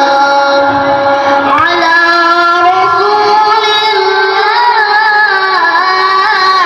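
A boy qari's voice reciting the Quran in melodic tilawah style, holding long notes with ornamented turns and glides between pitches.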